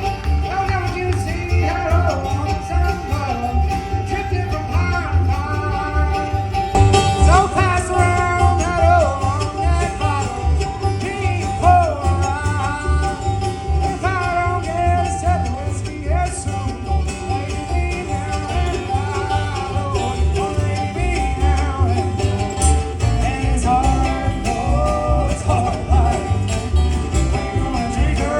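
Country-style song with singing over guitar and a steady bass beat.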